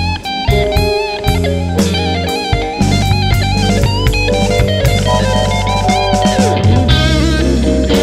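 Fender Stratocaster electric guitar playing a slow lead melody, the notes bent and shaken with vibrato, most clearly from about six seconds in. Underneath is a backing track with bass and drums.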